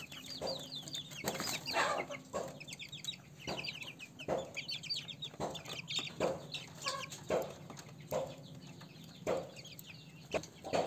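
Month-old kampung × Bangkok crossbred chicks peeping and clucking, a rapid run of short high calls with clucks between them.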